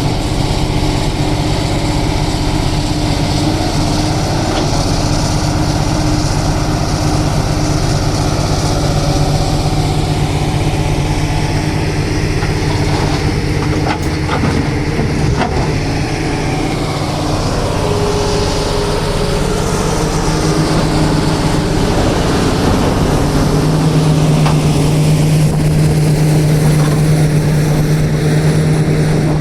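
Backhoe loader's diesel engine running steadily at work, its drone growing louder about three quarters of the way through. A few sharp clanks come in the middle.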